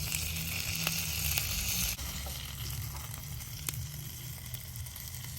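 Turkey burger patties sizzling in butter in a frying pan, with a few faint clicks and pops; the sizzle eases slightly about two seconds in.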